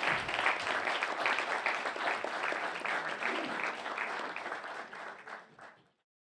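Audience applauding steadily, thinning out and then cut off sharply near the end.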